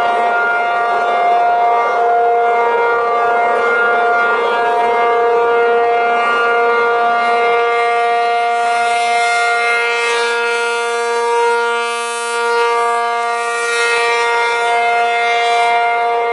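ACA P-50 rotating outdoor warning siren sounding a steady alert on its two tones, about 470 and 705 Hz. The sound dims and thins about twelve seconds in as the slowly rotating horn turns away, then swells back.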